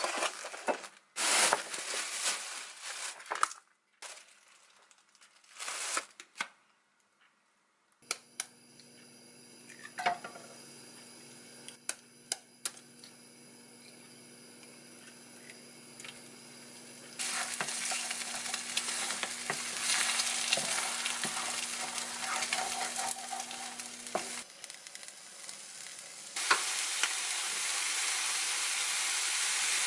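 Plastic packaging rustling as bean sprouts and enoki mushrooms are handled. Then eggs sizzle in a nonstick frying pan on a gas stove and are stirred into scrambled eggs over a steady low hum. Near the end, bean sprouts and enoki with a little water go into the pan and sizzle louder and steadily.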